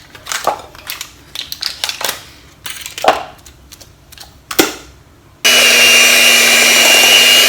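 A few clicks and knocks of utensils against a bowl. Then, about five and a half seconds in, an electric hand mixer starts suddenly and runs at a loud, steady speed, beating butter for cream cheese frosting.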